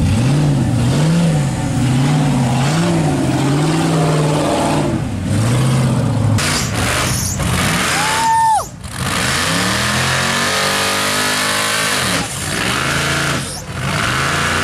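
Off-road rock buggy engine revving repeatedly under load as the buggy crawls up a rock pile, pitch swinging up and down with each blip of the throttle. A brief high tone cuts in about eight seconds in.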